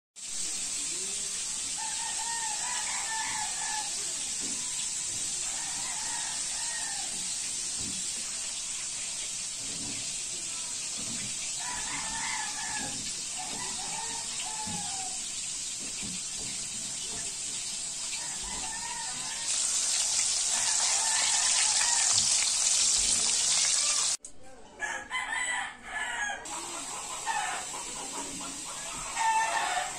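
Chickens clucking and roosters crowing every few seconds over a steady hiss. The hiss grows louder for a few seconds about twenty seconds in.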